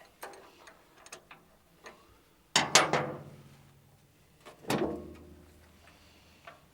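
A few light clicks and taps, then two loud knocks about two seconds apart, each ringing on briefly.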